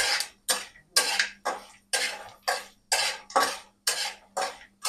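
Metal spatula scraping and stirring around an aluminium kadhai in steady strokes, about two a second, as asafoetida pieces fry in a little oil.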